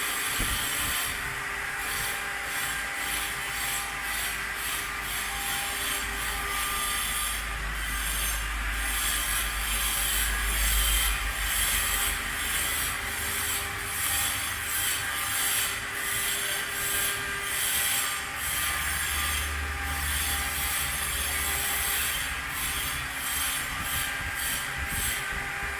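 CNC stone-engraving machine running, a steady grinding noise with a hum, its low rumble swelling twice.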